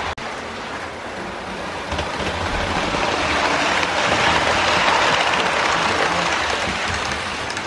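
Model trains running past close by: a steady whirr and rattle of motors and wheels on the track, building to its loudest about five seconds in and then easing off.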